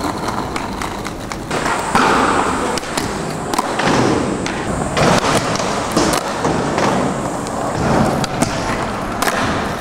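Skateboard wheels rolling on concrete, with several sharp clacks of the board hitting the ground from tail pops and landings.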